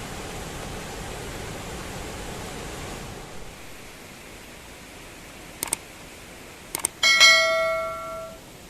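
A steady rush of water, dropping quieter about three seconds in. Near the end come two short clicks and then a single struck, bell-like metallic ring, the loudest sound, fading out over about a second.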